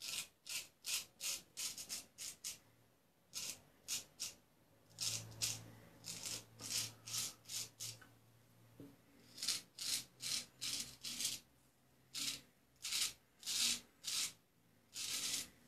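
Luigi Rizzo straight razor scraping through lathered short stubble on the cheek: many short strokes, about three a second, in runs with brief pauses between them.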